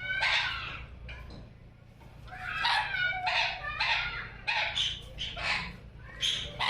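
A parrot calling: one high-pitched call at the start, then a quick run of short calls from about two seconds in.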